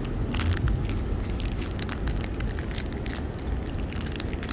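Plastic wrapper of a Reese's peanut butter pumpkin crinkling and crackling in short clicks as it is torn open by hand, over a steady low rumble of street noise.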